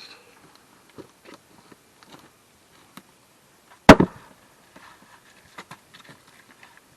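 An axe striking a wooden firewood block once, a single sharp, loud chop just before four seconds in, with a few lighter knocks and clacks of wood being handled around it.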